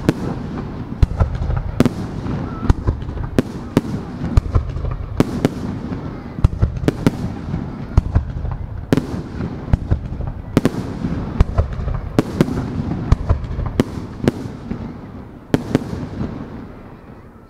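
Aerial firework shells bursting in quick succession: sharp bangs about one to two a second over a continuous low rumble. The barrage stops about a second before the end.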